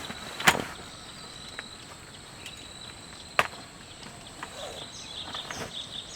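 Two sharp knocks, one about half a second in and a second about three and a half seconds in, with scattered lighter clicks and handling noises over a faint steady high-pitched hum.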